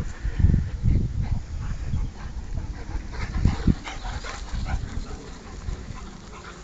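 Rottweilers barking a few times as they run, loudest about three to four seconds in, over low rumbling thumps that are strongest in the first second or so.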